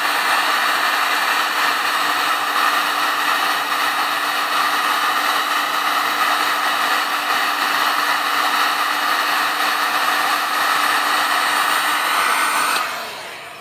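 Electric heat gun running steadily, its fan blowing hot air with a steady hum under the rush. The sound falls away quickly near the end.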